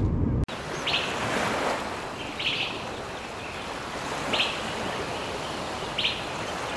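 Surf breaking on a reef, a steady hiss, with a bird giving short high chirps about every one and a half to two seconds.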